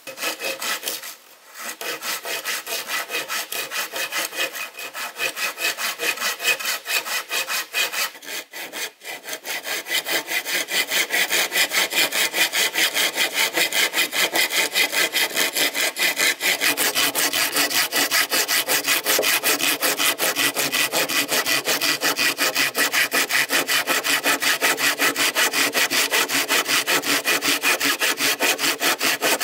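Hand saw cutting through wood in fast, even back-and-forth strokes. It breaks off briefly about a second in and again around nine seconds, then runs steadier and louder.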